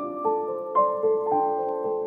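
Background piano music: a slow, gentle melody of single struck notes, about two a second, over held lower notes.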